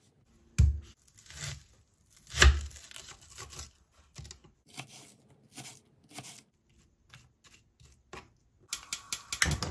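Kitchen knife cutting a red onion on a plastic cutting board: scattered slicing strokes, then rapid chopping near the end. Two heavier thumps come in the first few seconds, the louder about two and a half seconds in.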